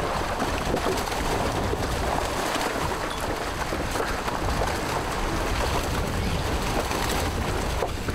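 Water churning and splashing at a boat's side as a fishing net is hauled in over the gunwale: a steady rushing noise.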